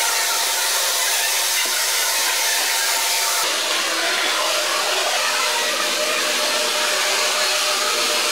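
Several electric hair dryers running together, a steady loud blowing with a few faint motor tones in it; the mix of tones changes abruptly about three and a half seconds in.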